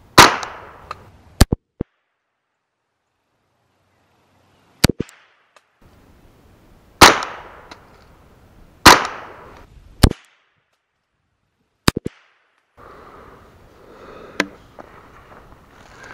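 Ruger 10/22 semi-automatic .22 LR rifle firing CCI round-nose rounds: single sharp shots spaced one to several seconds apart, the loudest ones trailing off briefly. Near the end, footsteps crunching through dry leaves.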